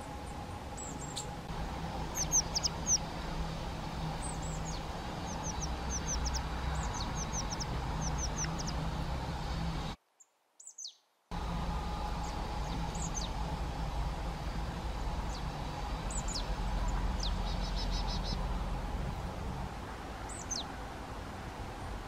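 Small songbirds calling with short, high, quick chirps, scattered singly and in little runs, over a steady low hum. The sound cuts out completely for about a second near the middle.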